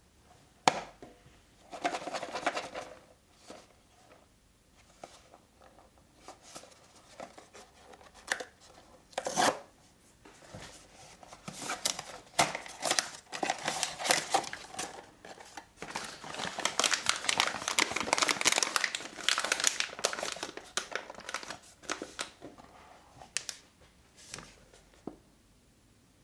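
Blind-box packaging being opened by hand: cardboard and plastic wrapping crinkling and tearing, with a sharp snap just under a second in, scattered clicks and taps, and a long stretch of steady crinkling in the middle to later part.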